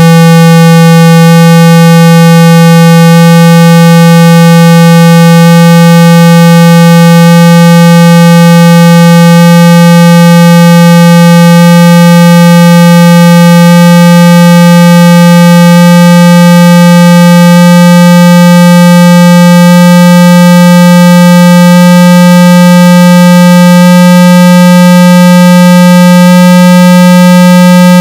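Loud continuous electronic test tone from a car-audio judging disc, rich in overtones, slowly gliding upward in pitch.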